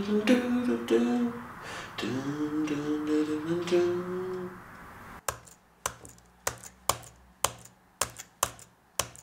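A voice humming a slow melody with long held notes. About five seconds in it gives way to a run of sharp, evenly spaced clicks, about three a second.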